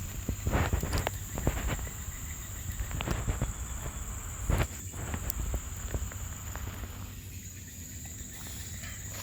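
Irregular clicks and knocks of shells being handled while eating grilled clams, over a steady high insect drone.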